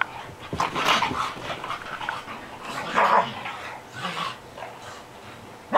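Dogs at play making short, irregular bursts of dog noise, the loudest about three seconds in and at the end.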